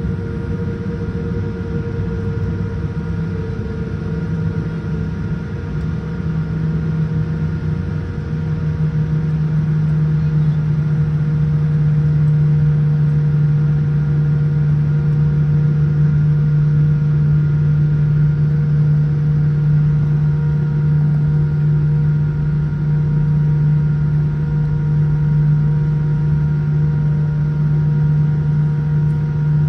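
Steady cabin drone of a Boeing 787-10 taxiing with its engines at low power, heard from a window seat over the wing. A low steady hum with a few fainter high tones grows louder about eight seconds in and then holds.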